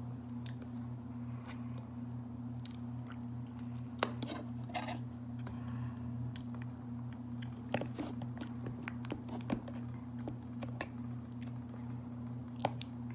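Close-miked chewing of raw honeycomb and bread: scattered wet smacks and short clicks of the mouth, the loudest about four seconds in and near the end, over a steady low hum.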